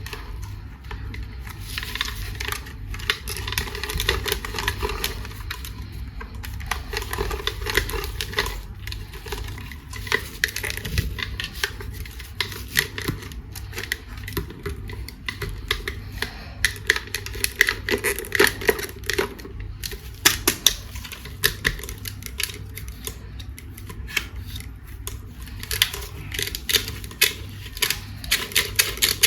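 Hands handling hard plastic toys and packaging: a dense, uneven run of small clicks, taps and rustles.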